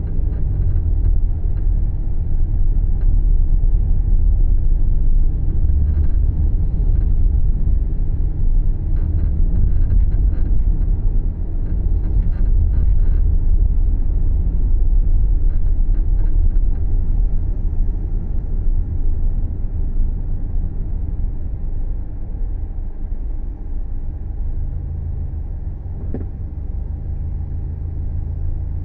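Subaru Levorg being driven, heard from inside: a steady low rumble of road and engine noise. Faint ticks and rattles come in clusters through the first half, and there is one sharp click near the end. The owner is recording the car for an abnormal noise while driving.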